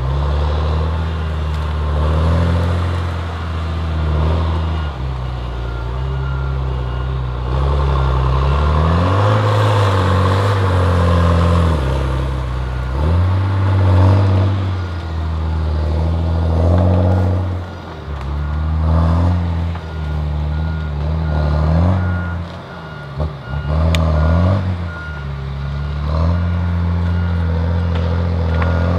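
Heavy diesel machine's engine revving up and down as it works, with its backup alarm beeping.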